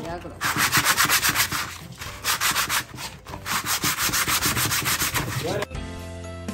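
Sheet of sandpaper rubbed by hand over a drilled wooden board in quick back-and-forth strokes, about five a second, with two brief pauses. It stops near the end and background music takes over.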